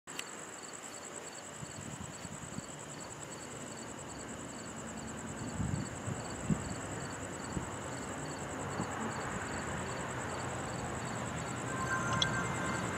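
Night insects trilling: one continuous high, fast-pulsing trill with a second insect chirping about three times a second, over a low rumble that slowly grows louder.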